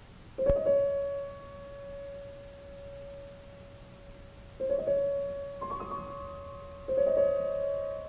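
Solo piano playing a slow, sparse passage of single notes and chords, each struck and left to ring: one about half a second in, another near five seconds, then a higher chord and one more note toward the end.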